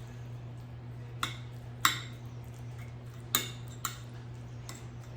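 An eating utensil clinking and scraping against a bowl while salmon is mixed into rice, with about five sharp, irregular clinks.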